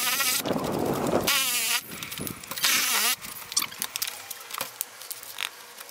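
Cordless drill running in short bursts, its high motor whine wavering in pitch as the trigger is worked, then a stretch of quieter clicks and rattles in the second half.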